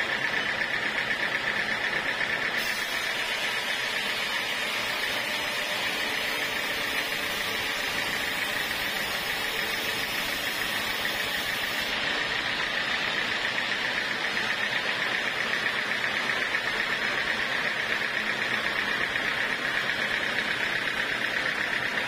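Band sawmill running, its blade cutting lengthwise through a large log: a steady mechanical hiss with a high whine. The whine weakens from a few seconds in until about halfway, then comes back strongly.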